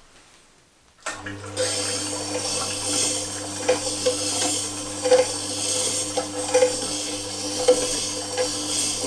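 Tormek T8 sharpening machine switched on about a second in: its motor hums steadily while a chisel bevel is ground on the diamond wheel, giving a hissing scrape with irregular ticks.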